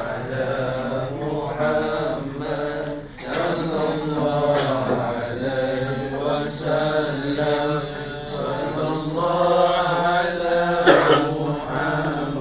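Zikir chanting in praise of the Prophet Muhammad, a sung devotional chant held in long pitched lines, with a brief sharp knock about eleven seconds in.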